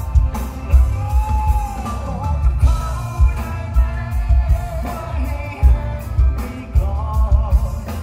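Live pop-rock band with a male lead vocalist singing into a microphone over electric guitar and a heavy bass-drum beat.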